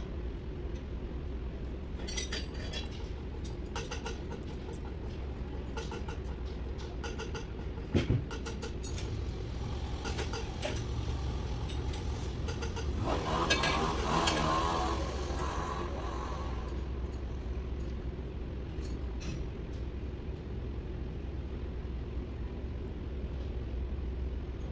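Light metallic clicks and clinks of hand tools on engine metal, over a steady low hum. A single thump comes about a third of the way in, and a louder rushing noise rises and fades over a few seconds around the middle.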